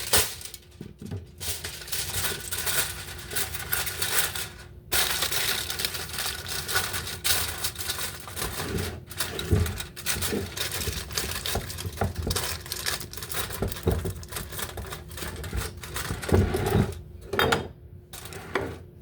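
Aluminium foil crinkling and rustling as it is torn off and crimped over a baking pan, with brief pauses and a few low knocks near the end.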